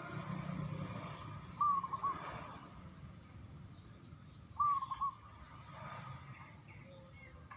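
Zebra dove (perkutut) cooing: two short phrases about three seconds apart, each a gliding note followed by two quick short notes. Other small birds chirp faintly.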